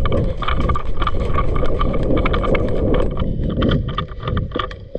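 Wind buffeting the microphone in a loud, low rumble, with many irregular sharp clicks and knocks over it.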